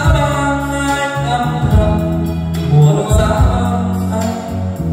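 A man singing karaoke into a microphone over a backing track with a heavy bass line, played loud through a PA loudspeaker system.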